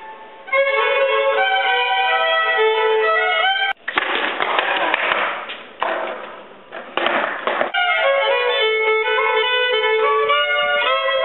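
Solo fiddle playing an improvised melody. A little under four seconds in it breaks off for about four seconds of rough rolling noise in two or three stretches, typical of skateboard wheels on pavement, then the fiddle resumes.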